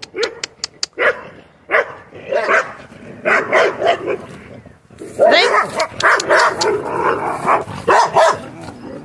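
Dogs barking repeatedly, spaced out at first, then in a fast, almost unbroken run in the second half. A few sharp clicks come right at the start.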